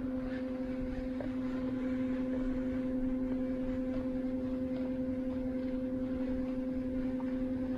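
A small electric motor running with a steady, even hum that holds one pitch.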